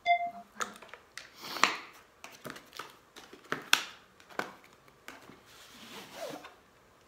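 A cardboard product box being opened and handled, its inner box slid out of the sleeve: a string of irregular rustles, scrapes and taps, with a longer sliding scrape about six seconds in.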